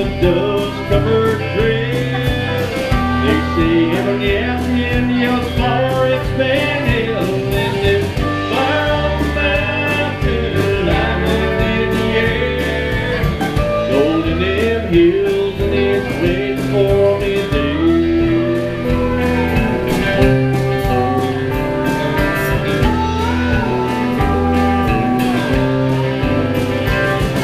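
Live country band playing: electric guitar and pedal steel guitar over a steady, rhythmic bass line, with singing.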